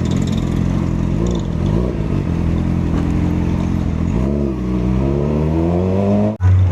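Vehicle engine revving. Its pitch climbs steadily over the last two seconds, then it cuts off abruptly near the end and gives way to a loud, steady low hum.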